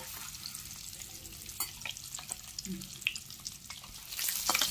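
Whole boiled eggs sizzling and crackling in hot oil in an iron wok, with a few light clicks; the sizzle grows louder near the end.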